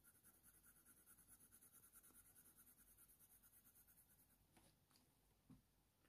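Near silence: faint room tone, with a couple of faint ticks about five seconds in.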